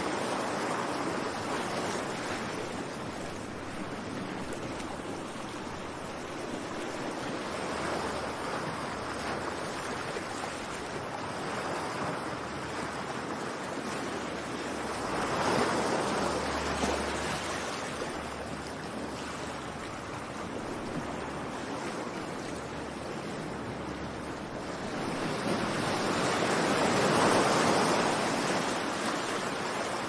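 Ocean surf: a continuous rush of waves breaking and washing up the shore, swelling louder with the bigger waves about halfway through and most strongly near the end.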